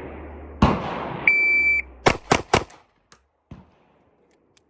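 A shot-timer beep, then three quick 9mm pistol shots from a Glock 26, about a quarter second apart. A loud bang with a long echoing tail comes just before the beep.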